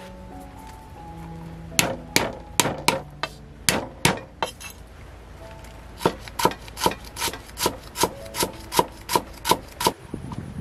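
A cleaver chopping on a round wooden chopping block: two bouts of sharp, evenly paced knocks, about three a second. There are about seven strikes in the first bout, then a short pause, then about a dozen more.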